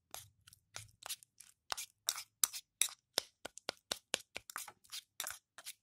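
Metal spoon stirring and mashing a thick wet clay paste of fuller's earth, milk and aloe vera gel in a steel bowl. It makes a quick, uneven run of short scrapes and clinks, about four a second.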